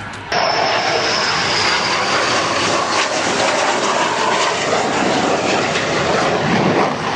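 Twin-boom jet aircraft passing low with a loud jet roar that cuts in abruptly just after the start, a high whine in it falling slowly in pitch over the first two seconds.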